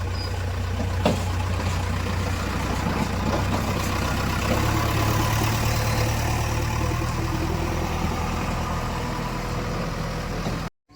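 Diesel engine of a JCB 3DX backhoe loader running steadily, with a single sharp knock about a second in. The sound cuts off suddenly near the end.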